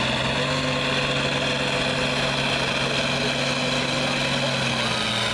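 Turbocharged diesel engine of an International Harvester farm tractor pulling a weight-transfer sled under full load, running hard and steady. The engine note dips slightly near the end.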